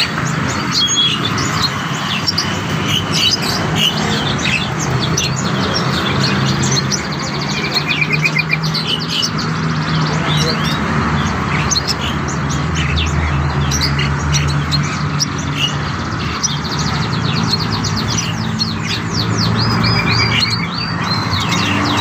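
Many small cage birds chirping and twittering continuously, with quick repeated trills, over a steady low hum.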